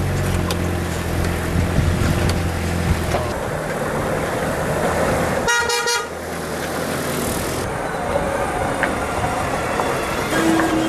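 Off-road 4x4s driving past with their engines running, and one short car-horn toot about halfway through.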